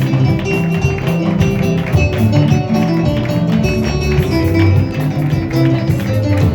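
Live church band music: plucked electric guitar lines over a bass guitar, played steadily with a quick rhythm.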